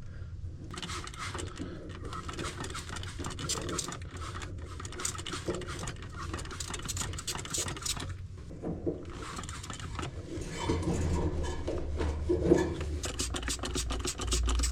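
Hand scratching and scraping, with fine rapid clicks, as hair and lint are picked and scraped off a clothes dryer part, pausing briefly twice.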